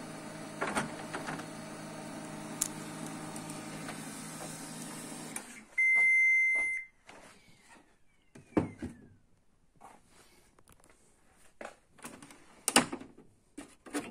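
HP LaserJet Pro MFP M127fw paper-feed mechanism running with a steady motor hum while its worn rubber pickup roller slips on the paper and fails to draw it in. The hum cuts off suddenly about five and a half seconds in. A steady beep of about a second follows, then scattered clicks and knocks of the printer's plastic parts being handled.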